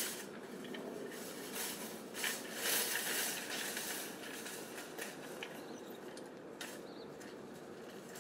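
Nested metal wire shopping carts clanking and rattling as they are handled and pulled from a cart corral: a sharp clank at the start, a longer burst of rattling about two to three and a half seconds in, and a few lighter clinks later.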